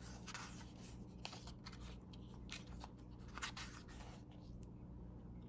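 Pages of a full-colour paperback guidebook being leafed through by hand: a string of soft, brief paper rustles and brushes, over a faint steady low hum.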